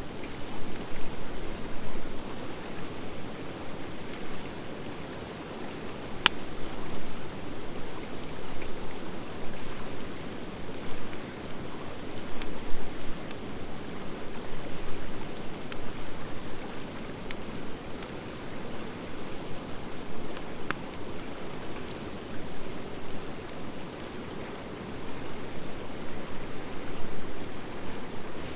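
Driftwood and dry hardwood logs burning in an open fire pit: a steady rush of flame with scattered small crackles and an occasional sharp pop, the loudest about six seconds in.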